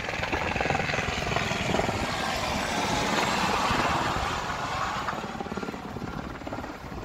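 Steady motor drone with a fast chopping beat under a rush of wind and water; it swells about midway and eases toward the end.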